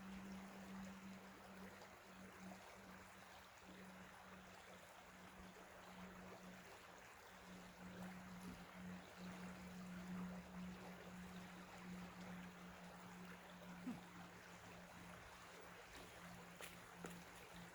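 Faint, steady rush of a small creek flowing, with a steady low hum beneath it.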